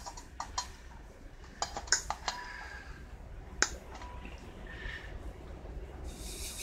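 Plastic zip ties being fastened around wires and trimmed: a scattering of short, sharp clicks and snips, the sharpest about three and a half seconds in.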